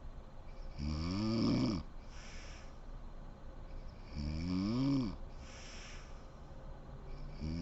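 A sleeping woman snoring in slow, regular breaths. There are two long snores about three and a half seconds apart, each rising then falling in pitch and followed by a softer breathy sound, and a third snore begins right at the end.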